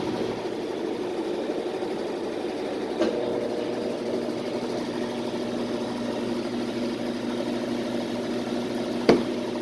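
Washing machine in its spin cycle: a steady motor hum with a few even tones, broken by a brief knock about three seconds in and a sharper one near the end.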